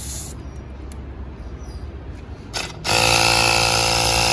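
Battery-powered 18-volt portable air compressor switching on about three seconds in and running with a steady, even-pitched mechanical drone as it inflates a freshly plugged car tire. Two short hisses come before it starts.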